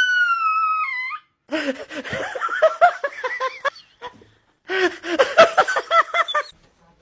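Two bouts of quick, high whining yelps from a begging dog, each about two seconds long. Before them a long sliding sung note falls and cuts off about a second in.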